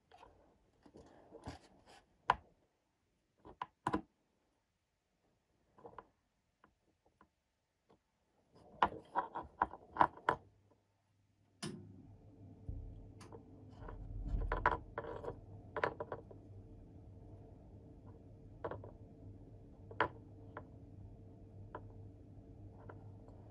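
Scattered small clicks and taps of parts and tools being handled on a workbench. About halfway through, a steady low electrical hum comes in and carries on under the handling noises.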